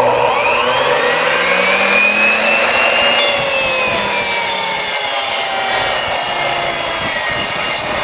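Ryobi compound miter saw running from a truck bed's 400-watt 120-volt outlet: the motor spins up with a rising whine, then about three seconds in the blade bites into wood and the motor's pitch sinks under the load while the cut goes on.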